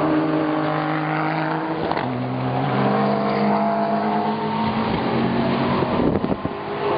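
GT3 race car engine running at steady pitch, stepping down to a lower pitch about two seconds in, and turning rougher and noisier toward the end.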